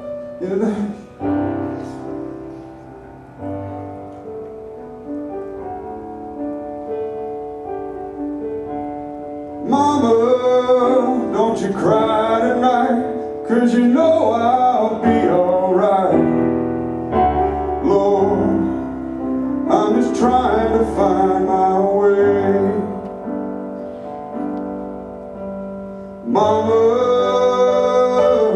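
A man singing into a microphone with piano accompaniment. The piano carries a softer stretch at first, and the voice comes in much louder about ten seconds in.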